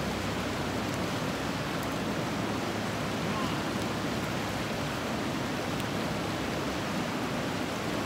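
Fast river rushing over rocks through rapids: a steady, unbroken rush of water.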